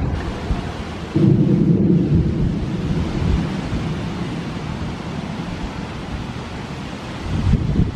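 Thunder from a severe thunderstorm: a low rumble that breaks in abruptly about a second in and rolls off slowly, with another low surge near the end, over a steady wash of wind and rain.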